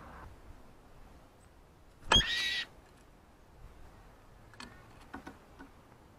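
A garden bird gives one short, loud, pitched call about two seconds in. A few faint short chirps or clicks follow later.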